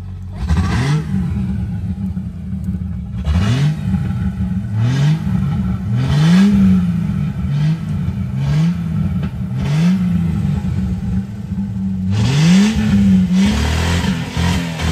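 A 4x4's engine revved again and again, each rev rising in pitch and dropping back, roughly once every second or two, louder from about twelve seconds in.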